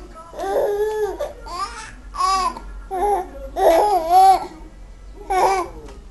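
A baby babbling and giggling in about six short, high-pitched bursts of voice.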